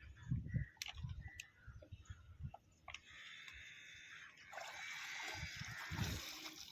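Sea water sloshing and splashing, growing louder in the second half, over scattered low thumps.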